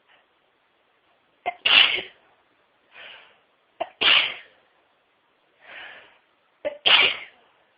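A person sneezing three times in a row, about two and a half seconds apart, in the middle of a sneezing fit. Each sneeze is a short sharp catch followed straight away by the loud burst, with quieter breaths in between.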